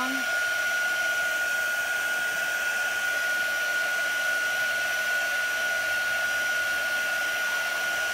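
Handheld craft heat tool running steadily, blowing hot air to dry freshly applied ink: a rush of air with a steady high whine.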